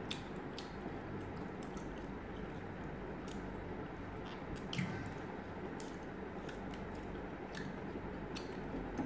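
Close-up chewing and wet mouth sounds of people eating grilled barbecue skewers, with scattered small clicks over a steady low hum.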